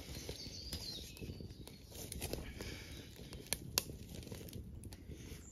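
Wood fire crackling inside a homemade ammo-box stove, with a couple of sharp pops about three and a half seconds in.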